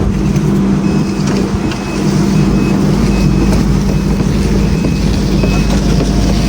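Heavy vehicle engine running steadily, with its reversing alarm beeping about once every 0.8 seconds: the machine is backing up.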